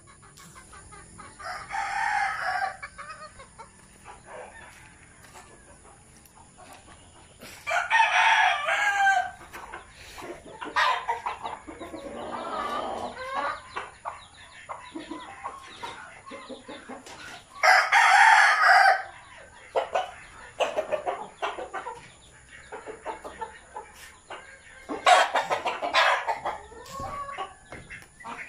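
A rooster crowing four times, each crow lasting about a second, with chickens clucking between the crows.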